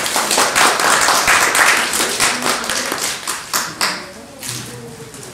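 A small audience clapping, a short round of applause that is loudest at the start and dies away about four seconds in.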